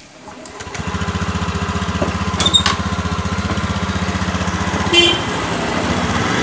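Honda Beat ESP scooter's small single-cylinder four-stroke engine starting within the first second and then idling with an even pulse, with a couple of sharp clicks about two and a half seconds in and a short clank near five seconds. This is a test run after worn clutch shoes in the CVT were replaced, and the owner judges it normal.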